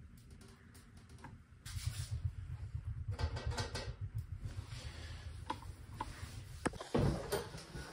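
Clicks, clinks and scrapes of a small steel wood stove's door and drawer being worked by hand, over a low rumble, with a sharp knock about seven seconds in.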